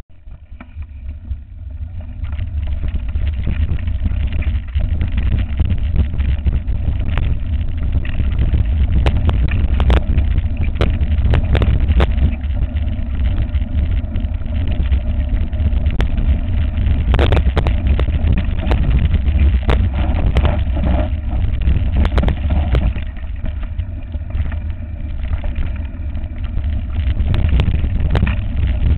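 Wind buffeting a camera microphone mounted on a mountain bike riding down a dirt and gravel track, a heavy low rumble, with frequent knocks and rattles as the bike jolts over stones. It starts quieter and builds after about two seconds.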